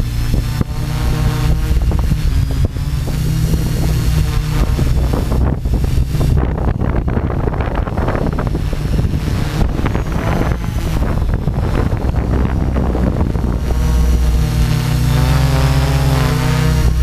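Tarot 690S hexacopter's brushless motors and spinning propellers whirring steadily, heard from a camera on the airframe. From about five seconds in, wind rush on the microphone drowns the motor tone for much of the time; the tone comes back clearly near the end, wavering in pitch.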